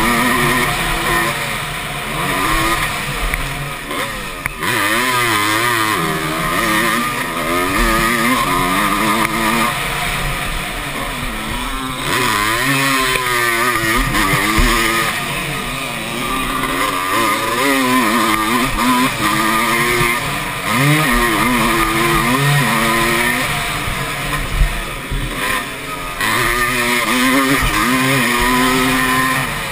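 Motocross bike's engine, heard close up from the rider, revving up and dropping back over and over as it is ridden hard through gear changes and corners.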